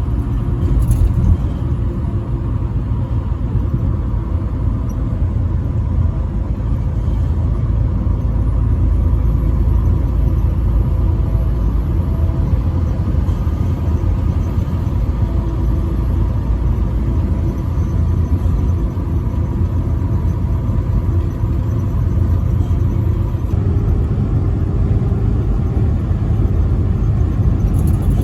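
Steady low rumble of a truck travelling at highway speed: engine drone mixed with road and tyre noise.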